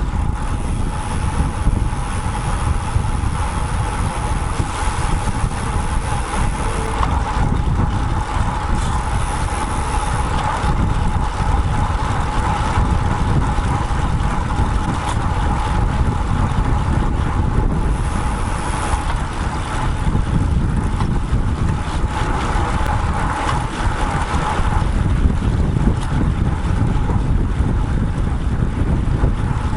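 Steady wind rush and road rumble on a bike-mounted action camera's microphone while a road bike is ridden, with a steady hum underneath.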